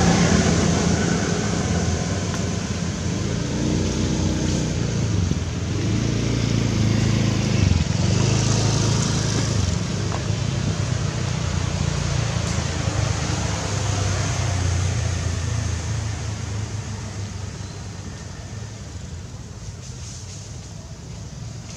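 A motor vehicle's engine running steadily nearby, its low hum wavering in pitch partway through, then slowly fading away over the last several seconds.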